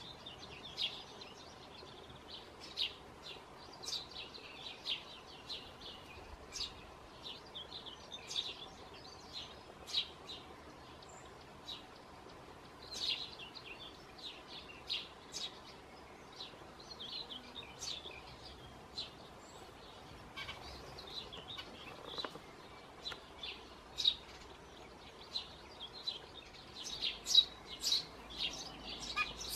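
Eurasian tree sparrow nestling begging from the nest box hole: short, high chirps repeated all through, coming faster and louder near the end as the adult arrives to feed it.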